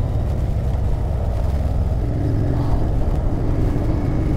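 Royal Enfield Interceptor 650's parallel-twin engine running on the move, heard through a helmet camera. A steady engine note comes in about halfway.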